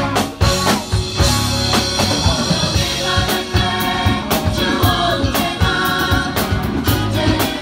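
Choir singing a gospel song with band accompaniment, with steady drum-kit hits and bass under the voices.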